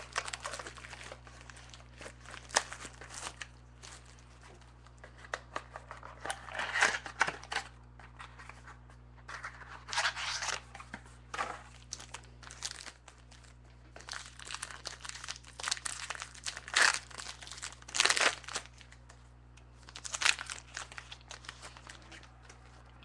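Crinkling and tearing of plastic wrapping and packaging as a mini box of trading cards is opened by hand, in irregular bursts of a second or two.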